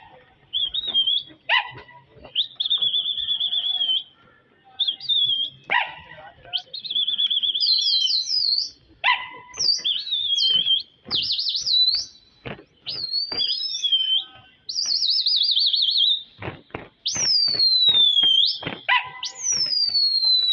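High whistles and chirps, with fast trills and calls that glide down in pitch, repeating throughout, and a run of short sharp clicks about three-quarters of the way through.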